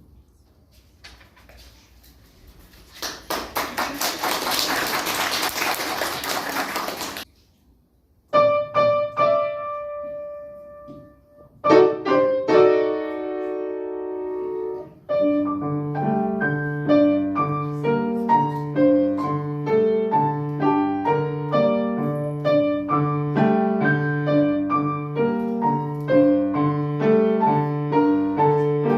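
Applause for a few seconds, then a piano starts a piece: a few separate notes and chords at first, then from about halfway a steady rhythmic pattern over a repeating bass figure.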